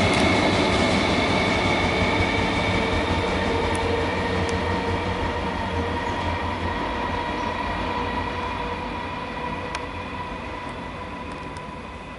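Comeng electric suburban train pulling away, its wheels running on the rails with a steady whine of several held tones, fading steadily as it recedes.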